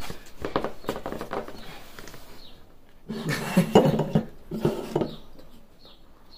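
Clicks, taps and rustles of hands handling a cardboard pizza box and a foam takeaway container of fries, busiest about three to five seconds in.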